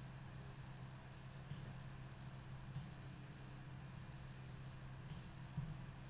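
Three faint, short computer-mouse clicks, about a second and a half, nearly three and about five seconds in, over a steady low electrical hum.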